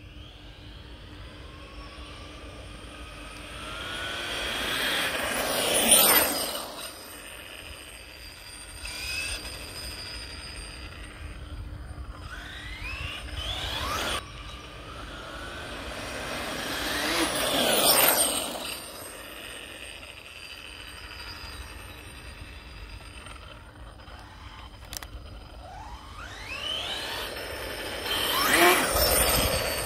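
MCD W5 large-scale RC car with a TP Power 5860 brushless motor making three fast passes. Its high motor and drivetrain whine rises in pitch and loudness as it closes in, peaks as it passes, and drops in pitch as it moves away, with passes about six seconds in, around eighteen seconds, and near the end.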